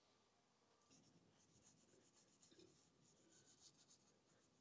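Near silence, with faint scattered light ticks and rubbing of gloved hands fitting a coolant outlet and its seal onto an aluminium cylinder head.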